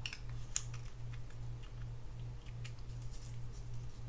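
Light, irregular clicks and scrapes of small parts of a Penn Spinfisher VI 7500 spinning reel being fitted and screwed together during reassembly, over a low pulsing hum.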